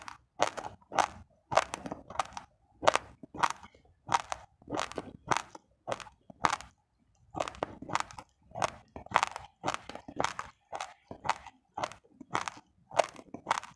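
Close-up chewing of raw, uncooked rice grains: a steady run of hard, gritty crunches, about two to three a second, with a short break about seven seconds in.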